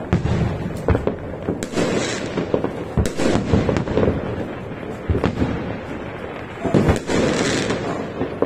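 Aerial fireworks going off in quick succession: a continuous barrage of bangs and booms with crackling, with a louder spell of crackle and hiss about seven seconds in.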